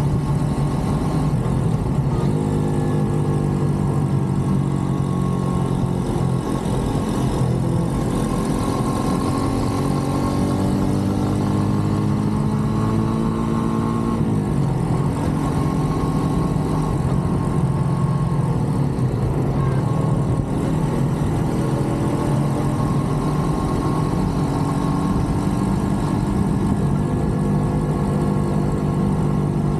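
A Brixton Cromwell 125's single-cylinder four-stroke engine running as the motorcycle rides along, with wind rushing past. The pitch climbs slowly as it accelerates, drops sharply about halfway through, then climbs again later.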